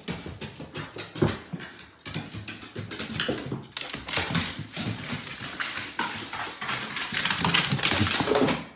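A dog's claws and paws clicking and tapping on hardwood stairs as it runs up them, in quick, irregular taps.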